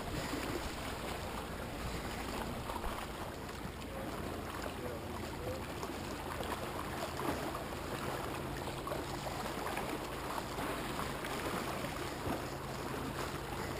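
Lake water lapping against a rocky shore, with wind, as a steady soft wash. A faint low steady hum joins about halfway through.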